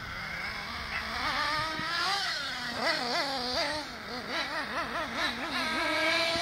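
HPI Trophy Truggy RC nitro engine screaming at high revs, its pitch rising and falling over and over as the throttle is worked, with quick wavers in the middle.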